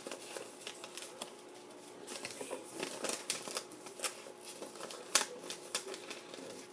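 A sheet of paper being folded and creased by hand: irregular rustles, crinkles and light taps, with a sharper crackle about five seconds in.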